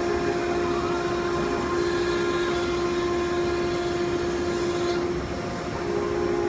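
CNC router spindle running steadily with a constant whine over a rushing noise.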